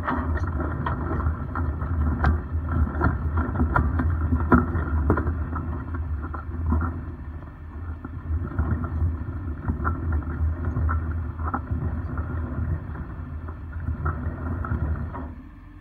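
Rollback tow truck's engine running steadily, with scattered clicks and knocks through it. The sound cuts off suddenly near the end.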